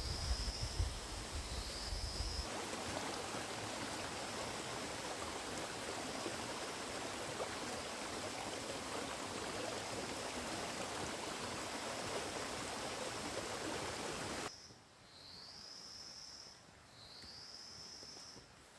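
Shallow rocky stream flowing steadily, after a brief low rumble of wind on the microphone at the start. Near the end the water noise cuts off, leaving a quieter forest with a short rising chirp that repeats about every second and a bit.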